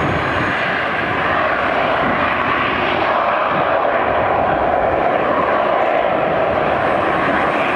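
McDonnell Douglas MD-80 airliner's rear-mounted Pratt & Whitney JT8D turbofans at takeoff thrust, a steady jet roar as the plane rolls down the runway.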